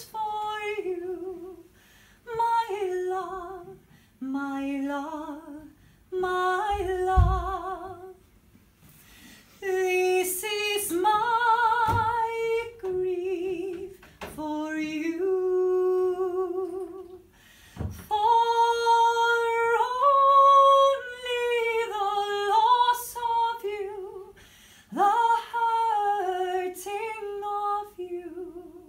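A woman singing solo and unaccompanied, in a trained voice with a clear vibrato, in phrases a few seconds long with short breaths between them.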